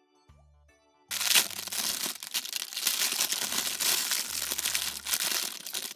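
Thin clear plastic bag crinkling loudly in the hands as it is handled and worked open, starting about a second in.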